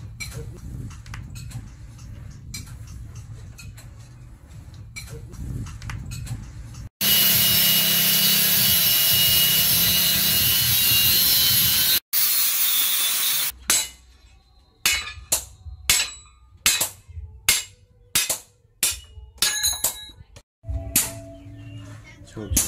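Angle grinder cutting through a steel bar, running loud and steady for about five seconds, stopping for a moment, then cutting briefly again. It is preceded by softer clicks and knocks and followed by a string of about a dozen sharp knocks.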